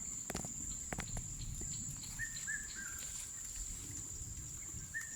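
A steady, high insect trill runs throughout, while a bird repeats a short three-note call twice, about three seconds apart. A few sharp clicks sound in the first second over a low rumbling background.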